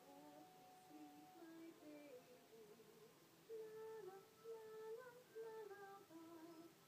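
Quiet humming of a slow tune: held notes stepping up and down in pitch.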